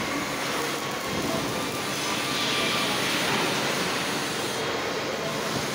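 Steady machinery din of a motorcycle-frame factory floor: a continuous even noise with faint steady tones running through it.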